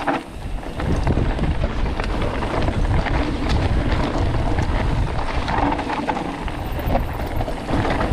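Mountain bike riding downhill on a dirt forest trail, heard from a camera on the bike or rider: wind on the microphone over tyre noise, with frequent small rattles and knocks as the bike runs over roots and stones.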